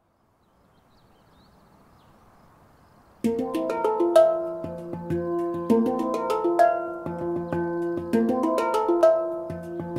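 TerraTonz Terrapan handpan, tuned to an F Tinggi Pelog scale at 432 Hz, played with the hands: struck notes ring out and overlap in a steady rhythm, starting about three seconds in after a faint background hiss.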